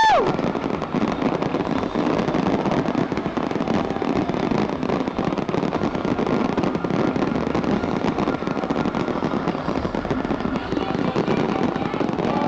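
Fireworks going off in rapid, continuous crackles and pops over the murmur of a large crowd.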